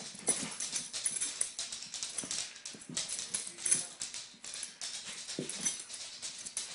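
Beagle making several brief, low play noises while scuffling with a kitten on a fleece blanket, over a steady rustle of the blanket.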